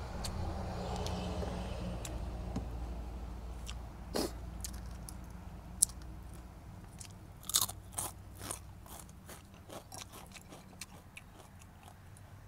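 Close-up crunching and chewing of crispy fried dried fish (danggit), a scatter of sharp, irregular crunches starting about four seconds in, over a low steady hum in the first few seconds.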